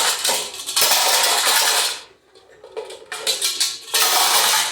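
Metal pots and lids banged and rattled together by a toddler: dense clattering in stretches, with a short pause about two seconds in before more strikes.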